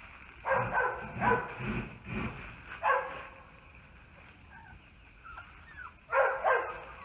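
Labrador retriever puppy yapping: a string of about six short yaps in the first three seconds, a few faint whines in the middle, then two more yaps near the end.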